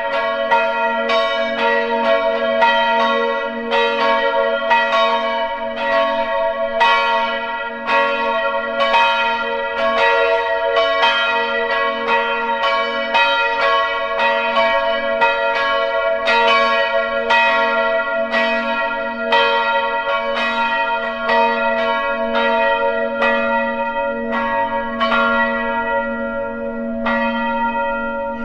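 Church bells pealing: bells struck over and over in an irregular stream, their tones ringing on and overlapping between strokes.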